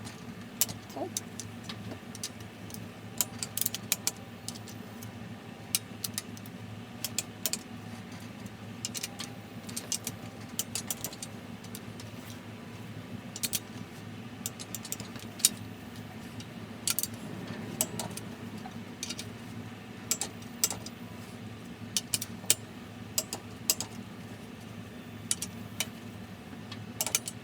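Torque wrench ratcheting and clicking in short, irregular runs as the crankshaft main bearing cap bolts of a D16 block are tightened to about 18 ft-lb, over a steady low hum.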